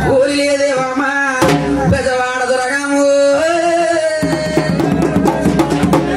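Festival music: a melody held in long notes over drumming, with quick drum strokes coming thick and fast from about four seconds in.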